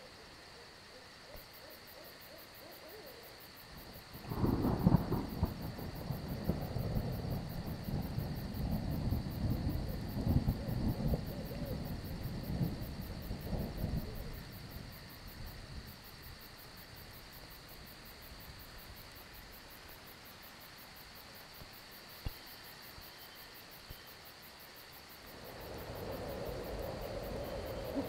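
Thunder rumbles for about ten seconds, starting about four seconds in, with a couple of sharp cracks. Under it runs a steady high chirring of crickets, and the background swells again near the end.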